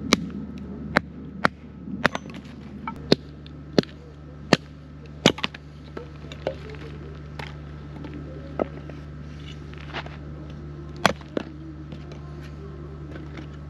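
Hatchet splitting firewood into kindling: sharp wooden knocks, about one a second at first, then more spaced out.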